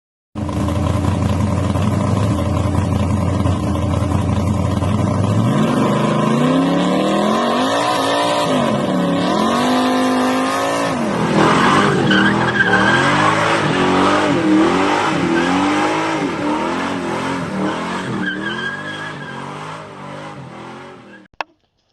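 Car engine idling steadily, then revved up and down repeatedly, with tyre squeal joining about halfway through. The sound fades out near the end.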